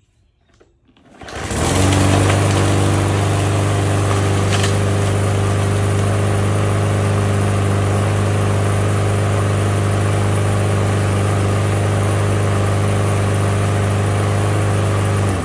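Walk-behind lawn mower's small single-cylinder gasoline engine catching on the pull-start about a second in and running at a steady speed, with its cleaned breather and new air filter, then shutting off and running down near the end.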